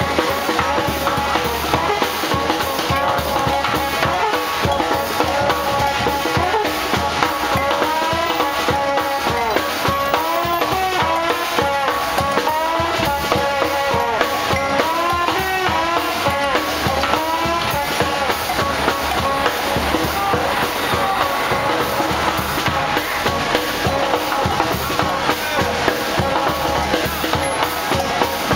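Live street band playing, a drum kit keeping a steady beat under bending melodic lines.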